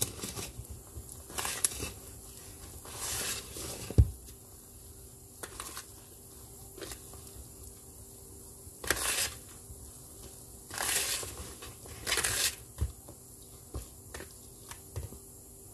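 Wire whisk working thick puto batter, flour into wet ingredients, in a plastic bowl: irregular swishing, scraping strokes, with one soft knock about four seconds in.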